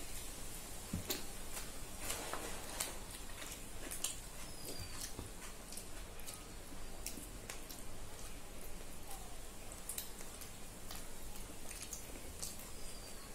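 Eating by hand from steel plates: scattered short clicks and smacks of fingers working rice and chicken curry and of mouths chewing, over a steady low hiss.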